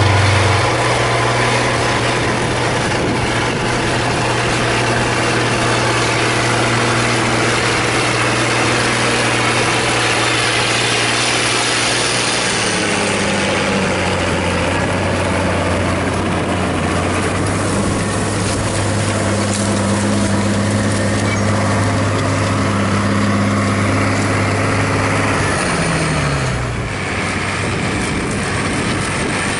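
International Harvester 5288 tractor's six-cylinder turbo diesel engine running steadily under load while pulling a six-bottom moldboard plow. The engine note shifts slightly lower about halfway through and falls again briefly near the end.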